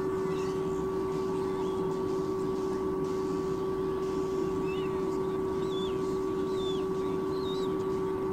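Steady electrical hum with background hiss on a nest camera's audio, and a few faint, short, high chirps in the second half.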